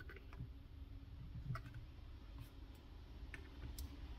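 A few faint, scattered clicks and ticks of small hand tools and fingers handling a docking station's plastic housing and circuit board, with irregular gaps between them.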